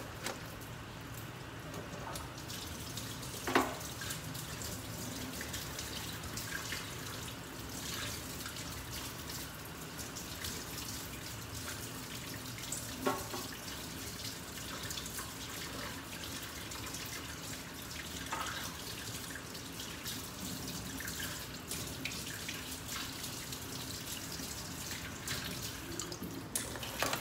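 Kitchen tap running steadily into a stainless-steel sink as live mud crabs are rinsed under it. A few sharp knocks of crab shell against the sink break through, the loudest about three and a half seconds in and another about thirteen seconds in.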